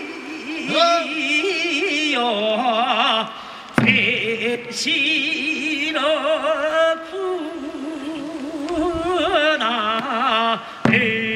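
Korean farmers' rice-transplanting work song (nongyo) sung with strong vibrato and long held notes. A few sharp drum strokes come about four seconds in, again a second later, and near the end.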